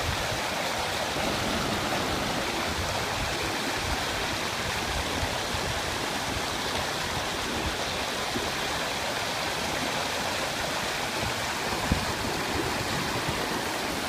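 Shallow mountain stream rushing and splashing over rock ledges in small cascades: a steady, even rush of water.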